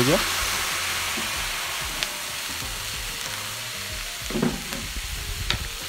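Broccoli and garlic sizzling in a wok with the heat turned off, the hiss slowly dying down, with a couple of clinks of the metal wok ladle.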